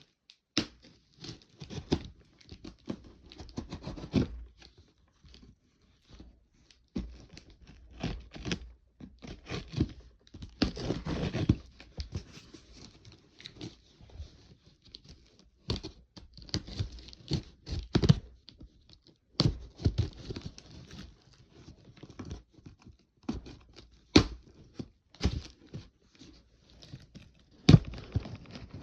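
Packaging being handled: irregular tearing, crinkling and rustling with scattered sharp knocks, coming in short bursts with brief pauses between them.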